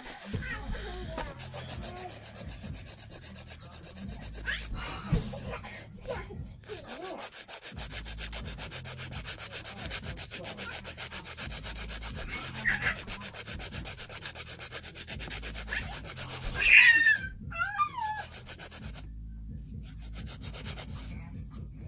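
Hand nail file rubbing over the tip of an acrylic nail in rapid, even strokes, rounding and shaping the nail. A short pitched vocal sound breaks in about three-quarters of the way through.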